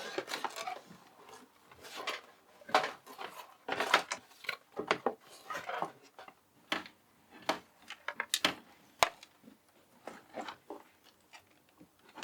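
Computer parts being handled and fitted by hand: irregular clicks, taps and scraping of plastic and metal, with one sharp click about nine seconds in.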